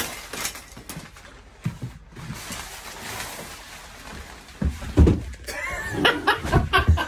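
Knocks and thumps of fittings being wrenched out of a truck sleeper's interior during demolition. The loudest is a heavy thud about five seconds in.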